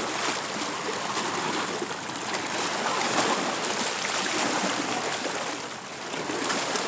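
Lake water washing and splashing against boulders at the shoreline, a steady rushing wash.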